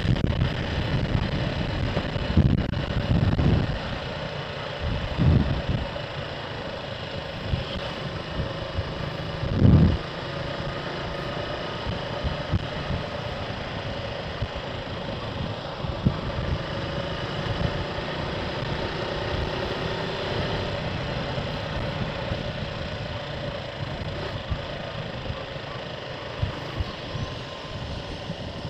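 Motorcycle riding along, heard through an action camera's microphone: steady engine drone under heavy wind noise on the mic, with a few louder low thumps in the first ten seconds.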